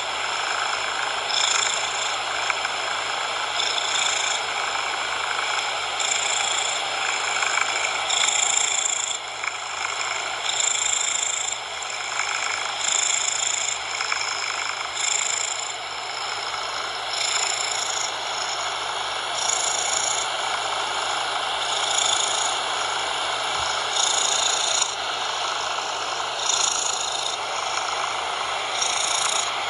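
A cat purring in a steady cycle of breaths, about one every two seconds, laid over a steady bed of synthetic coloured noise.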